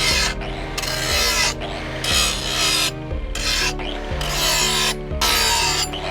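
Hand file rasping across steel in repeated strokes, about one a second.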